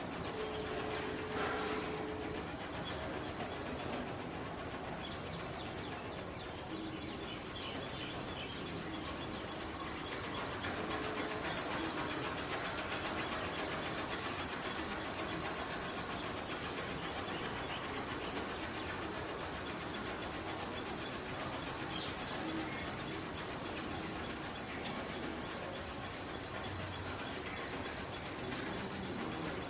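A bird chirping in long runs of rapid, evenly repeated high notes, about three or four a second, over a steady hiss of outdoor background noise. The chirping pauses for a couple of seconds in the middle.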